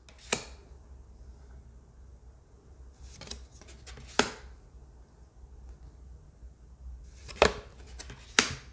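Tarot cards handled one at a time in a hand-held deck: short, sharp card snaps and clicks as each card is moved and the next one shown, in small groups a few seconds apart.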